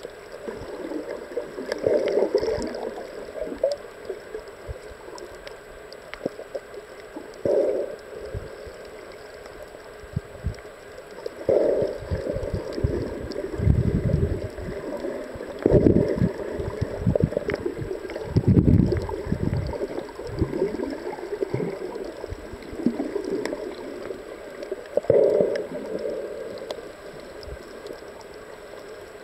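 Muffled underwater sound of water moving around a camera housing: irregular gurgles and swells, with a few deeper low thumps midway.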